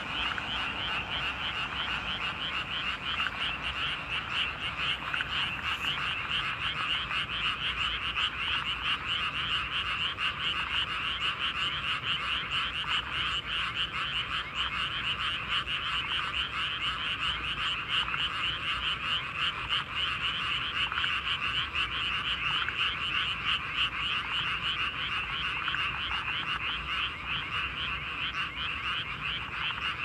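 Chorus of many rice-paddy frogs calling together: a dense, steady mass of rapid, overlapping croaks that never pauses.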